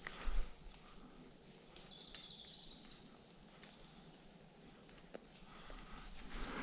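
A few high bird chirps over a faint outdoor background, with a brief knock of handling noise just after the start.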